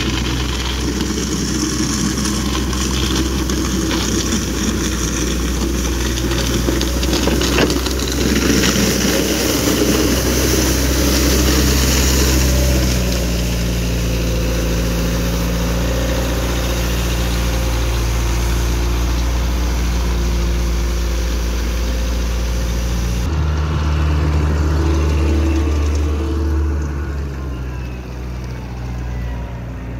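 Wille 455 compact loader's diesel engine running steadily while its front-mounted Vila 202 rotary brush sweeper scrubs grit off an asphalt path, a hissing scrape over the engine note. The engine pitch shifts a little partway through, and the sound changes abruptly about two-thirds of the way in.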